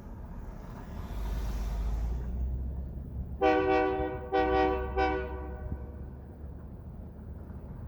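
Great Lakes Central Railroad diesel locomotive: a low engine rumble swells, then the air horn sounds a few blasts starting about three and a half seconds in, the last trailing off after about two seconds.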